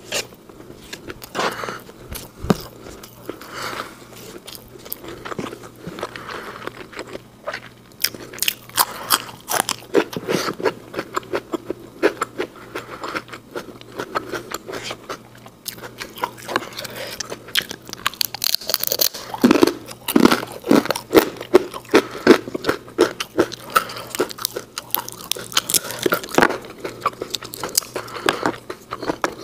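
A person eating fried rice and crispy fried snacks close to a clip-on microphone: many short crunches and chewing mouth sounds, densest and loudest in the second half.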